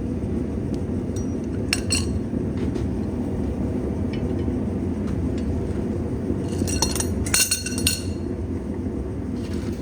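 Metal tools clinking against steel at the anvil: a couple of sharp clinks about two seconds in and a quick cluster around seven to eight seconds, over a steady low rumble.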